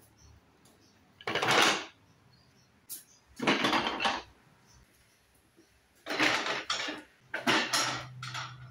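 Lengths of wooden rails and spindles clattering as they are set down on a plastic folding table, in several bursts a second or two apart.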